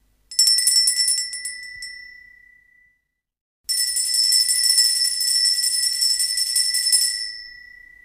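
Small shop doorbell ringing with rapid repeated strikes, twice: a short burst that fades away, then a longer ring of about three and a half seconds starting near the middle that also fades out.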